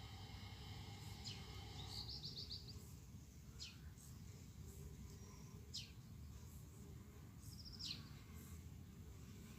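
Birds calling: a short chirp falling in pitch repeats about every two seconds, with two brief trills, over a faint low rumble. A steady pitched hum stops about two seconds in.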